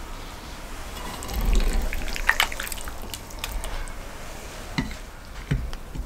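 Serving spoon clinking and scraping against a ceramic platter and plate as wet stewed meat and vegetables are dished out, with juicy squelches of the food. Several quick clicks cluster a couple of seconds in, and a few dull thumps come at intervals.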